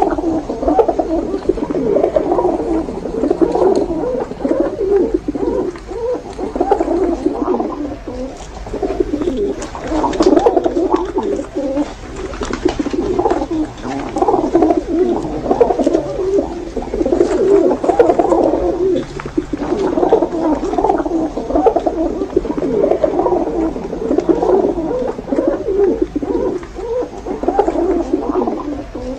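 Several domestic pigeons cooing continuously, their calls overlapping in waves.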